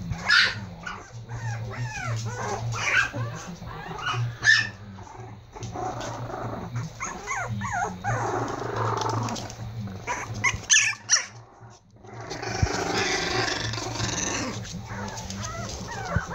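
Four-week-old Prague Ratter puppies play-fighting: a run of high, squeaky yips and whines, with a few sharper yips and two longer stretches of rough little growls.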